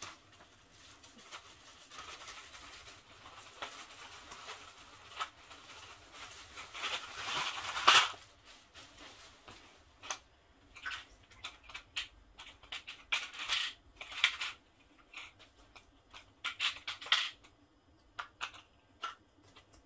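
A plastic bag rustling as it is opened and handled, ending in a loud clatter about eight seconds in as the hard plastic T connectors spill out. After that, the connectors click and clack against each other and are set down a few at a time on a tile floor.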